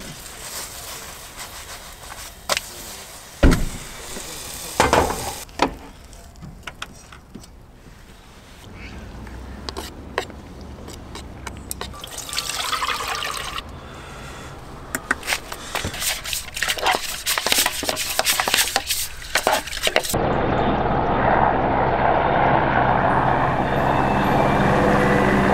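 Pan and utensils knocking and clattering while a camp kitchen is cleared, then water poured from a plastic jerrycan into a frying pan for washing up. A steadier, louder sound takes over about twenty seconds in.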